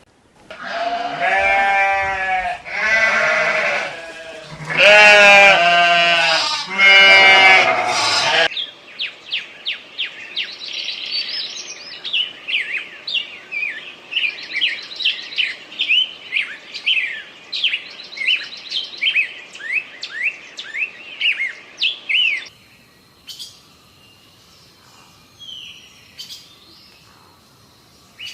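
Four long, wavering bleat-like animal calls, then a fast run of short, high bird chirps for about fourteen seconds that stops abruptly, leaving a few faint, scattered calls.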